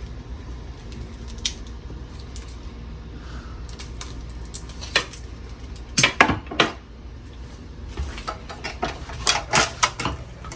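Small metal clinks and taps of faucet fittings, supply-line nuts and hand tools being handled, in a few quick clusters: one around five to six and a half seconds in, another from about nine to ten seconds.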